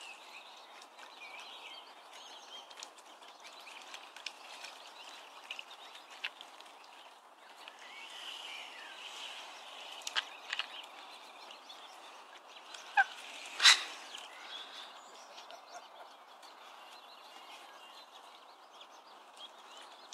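Birds calling and chirping faintly over a steady outdoor background hiss. A few short, sharper calls stand out about ten seconds in and again around thirteen to fourteen seconds in.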